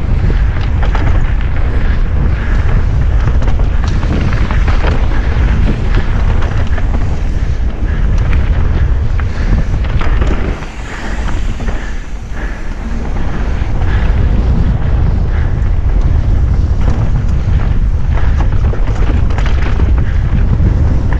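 Heavy wind buffeting on a GoPro microphone on a mountain bike descending a rough enduro trail, with the bike clattering and knocking over rocks and roots. The rush eases for a couple of seconds about halfway through, then returns.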